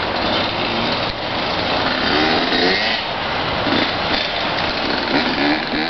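Hyundai Santa Fe SUV driving along a rough dirt trail: a steady rushing vehicle noise of engine and tyres.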